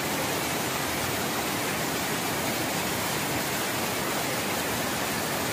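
Water pouring over a low check dam and churning into the pool below: a steady, even rush of whitewater.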